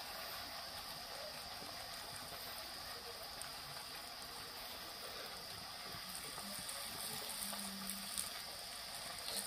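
Hot oil sizzling steadily in a kadhai as two batter rosettes (phool roti) deep-fry in it.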